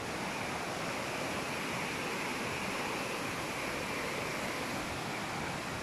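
A flood-swollen river rushing over rocks: a steady, even rush of water.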